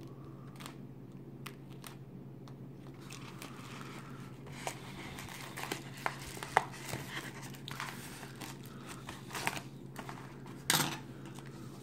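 Packaging being handled and torn open: crinkling and tearing of plastic and paper with scattered sharp clicks, busiest in the second half and loudest in a brief rustle near the end, over a steady low hum.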